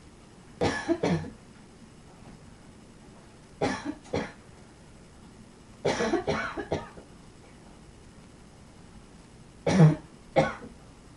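A person's barking chest cough, in four fits of two to four coughs each, a few seconds apart; the last fit is the loudest.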